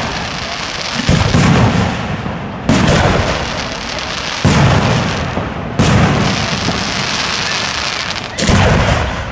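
Aerial firework shells bursting overhead: about five loud booms a second or two apart, each followed by a long rumbling tail.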